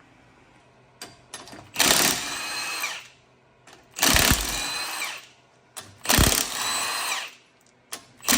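Handheld power tool run in four bursts of about a second each, its motor pitch dropping as it winds down at the end of each burst.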